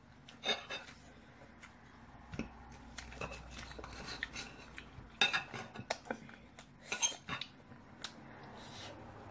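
A metal knife and fork scraping and clinking against a ceramic plate as a sausage is cut, in irregular clinks and scrapes.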